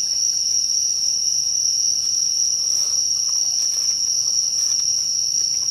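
Steady chorus of night insects, one continuous high-pitched tone with fainter higher and lower bands, unbroken throughout.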